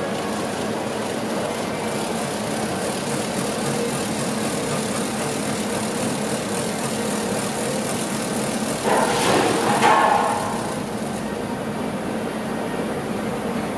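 Steady mechanical hum and hiss of running machinery, with a louder rushing noise about nine seconds in that lasts about two seconds.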